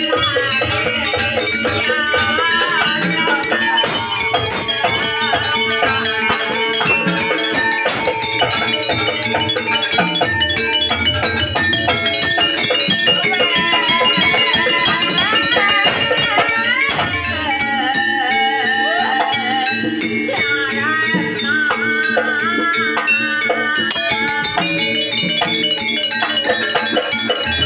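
Live jaranan accompaniment music: a Javanese percussion ensemble with jingling rattles, steady pitched tones and a wavering melody line over it.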